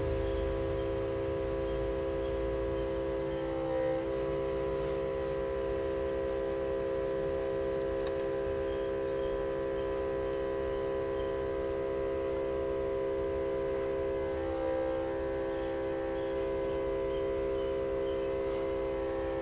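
LCD separator machine running with a steady electrical hum made of several even tones.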